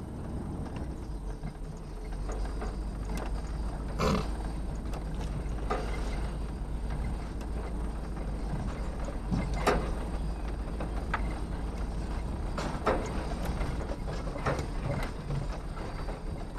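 Vehicle driving slowly over a grass pasture, heard from inside the cabin: a steady low engine rumble with scattered knocks and rattles, the loudest about four and ten seconds in.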